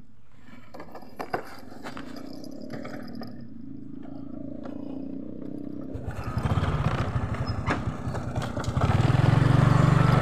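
Honda automatic scooter's small single-cylinder engine idling quietly, then revving as the scooter pulls away about six seconds in, getting louder again as it picks up speed near the end.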